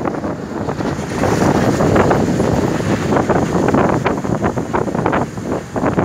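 Wind buffeting the phone's microphone in loud, irregular gusts.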